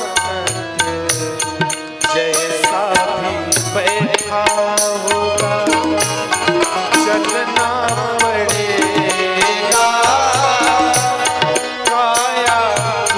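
Devotional bhajan music: a wavering melody line over a steady hand-drum rhythm.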